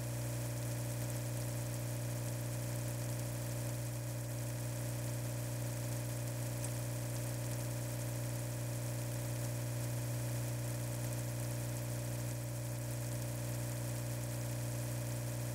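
A steady low mechanical hum, even and unchanging throughout.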